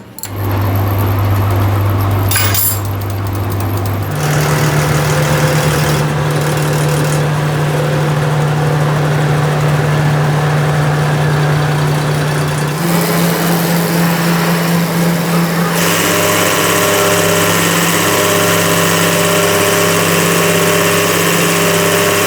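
Machinery running steadily with a low hum, its pitch and tone changing abruptly about 4, 13 and 16 seconds in.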